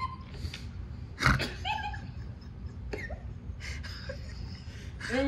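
A person's breathy laughter with a cough about a second in.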